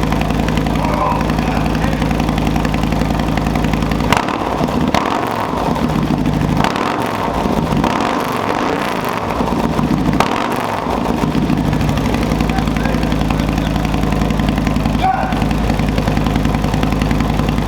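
Harley-Davidson Road Glide's Milwaukee-Eight V-twin idling through a freshly fitted Khrome Werks 2-into-1 exhaust, with several throttle revs between about four and eleven seconds in before it settles back to a steady idle. The note is deep but raspy.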